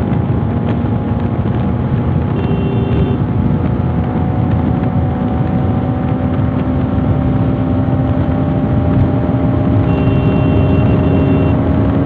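Motorcycle engine and wind noise while cruising steadily on the highway, the engine note holding a steady pitch and creeping slightly upward. A horn sounds briefly twice, about two and a half seconds in and again near the end.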